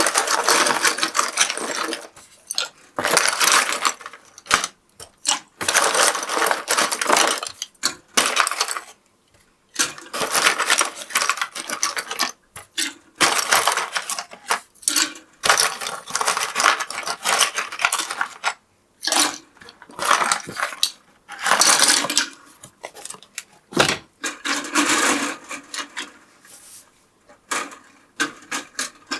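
Plastic keycaps from a BBC Micro keyboard clattering as they are dropped a handful at a time into the basket of an ultrasonic cleaner, in irregular bursts with short pauses between them.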